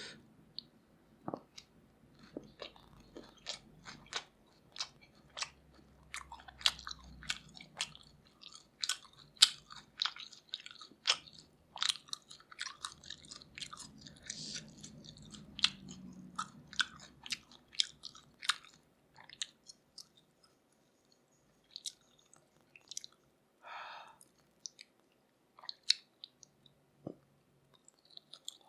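A person chewing grilled pork neck in spicy sauce, close to the microphone: many short, sharp, wet mouth clicks in an irregular run, thinning out after about 18 seconds.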